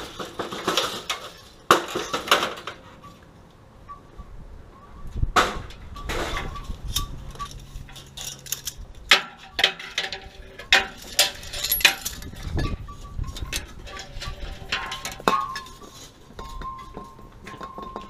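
Irregular clinks, knocks and rattles of a thin sheet-metal strip and tools being handled and bent.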